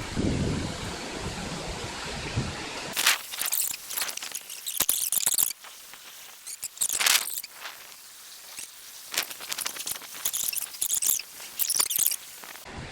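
Storm wind buffeting the microphone with a low rumble, then, about three seconds in, irregular gusts of hissing and rustling, like wind tearing through tree foliage.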